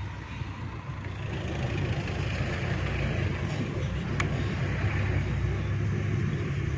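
Steady low engine and road noise of a vehicle driving, heard from inside the cabin.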